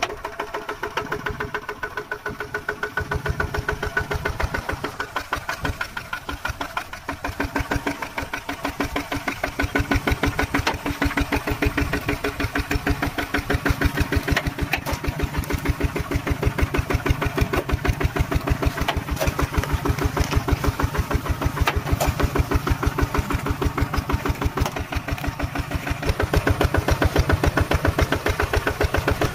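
Single-cylinder diesel engine of a two-wheel walking tractor running steadily with a rapid, even thudding beat as it hauls its cage wheels and plough through flooded paddy mud.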